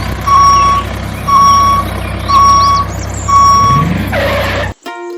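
A vehicle's reversing alarm beeps about once a second over a steady low engine hum. Just before the end there is a short rising sound with a hiss, then everything cuts off abruptly and plucked-string music starts.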